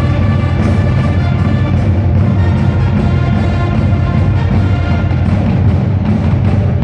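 Music with a steady beat of about three strikes a second over a heavy bass.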